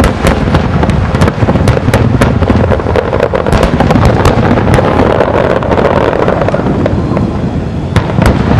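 Aerial fireworks shells bursting in quick succession: a dense run of sharp bangs and crackles over a continuous rumble.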